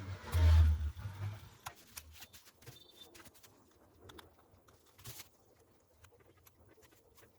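Microwave oven motor making noise: a loud low buzz about half a second in, lasting under a second, then fainter buzzes that come and go, with scattered clicks.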